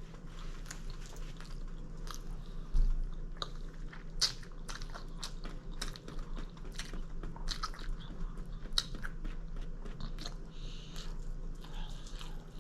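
Close-miked chewing of food, with many short wet mouth clicks and some crunching, and one low thump about three seconds in.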